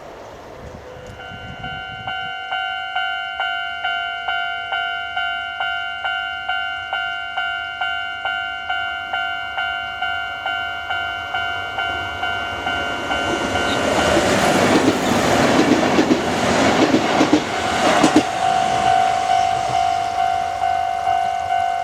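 Japanese level-crossing warning bell starts ringing about a second in, an even two strokes a second. A Kintetsu Minami Osaka Line train then passes over the crossing, its wheels clattering loudest from about 13 to 18 seconds in. The bell goes on ringing until it stops near the end.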